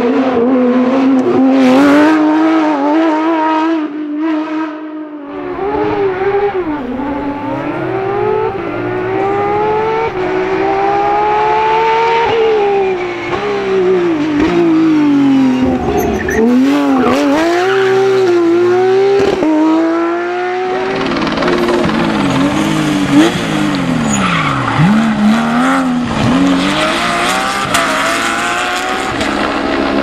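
Porsche 911 GT3 rally cars' flat-six engines at full race revs, the pitch repeatedly climbing and dropping through gear changes and lifts into corners. The engine note changes abruptly about five seconds in and again about two-thirds of the way through as one car gives way to the next.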